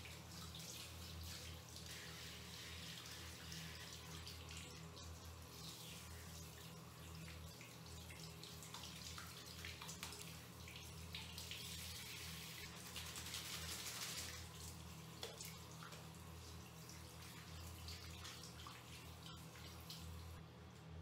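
Handheld shower head spraying water over a dog's wet coat and onto a tiled floor as the dog is rinsed, a steady hiss of running water that gets louder for a few seconds past the middle.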